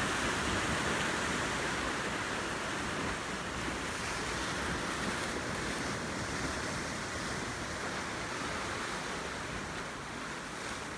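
Ocean surf washing in steadily, an even hiss of waves with wind and no single crash standing out, easing slightly toward the end.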